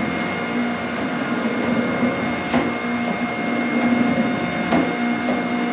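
Automatic saw-sharpening machine running steadily as its grinding stone works the teeth of a cedar shingle saw blade, a steady hum with a sharp click about every two seconds as it goes through its cycle.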